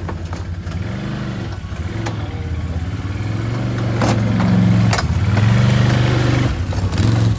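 Off-road vehicle engine revving up and down several times, getting louder about halfway through, as the stuck vehicle tries to drive out. There are a few sharp clanks in between.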